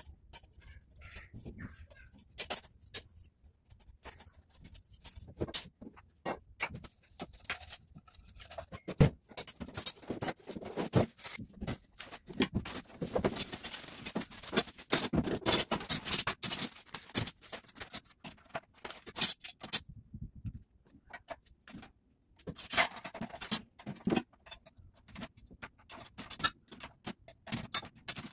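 Metal cutlery and kitchen items clinking and clattering as they are handled and set into a plastic dish rack. A stretch of plastic packaging rustling comes about halfway through.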